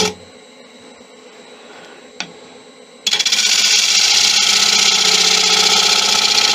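Turning tool cutting a spinning monkey puzzle bowl blank on a wood lathe, a loud, steady scraping hiss. The cut breaks off at the start, leaving a quieter stretch with a single click about two seconds in. It resumes about three seconds in.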